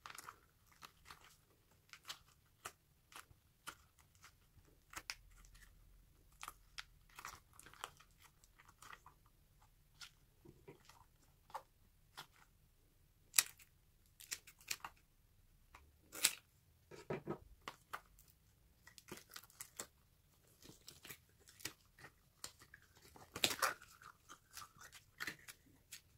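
Soft rubber unicorn stress toy being squeezed and stretched by hand: faint, irregular crackling and squishing, with a few louder crackles around the middle and a cluster of them near the end.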